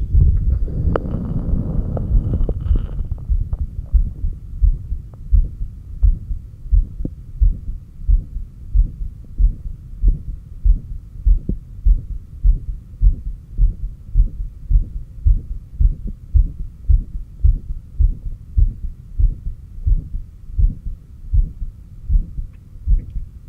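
Human heartbeat heard through a stethoscope on the chest at the heart's apex: steady, deep lub-dub thumps, a little over one beat a second. A breath rushes over the beats for the first three seconds.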